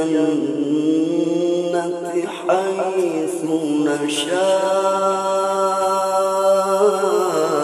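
A man's voice in melodic Quran recitation (tilawah): long, ornamented held notes, with one long steady note through the second half that drops away near the end.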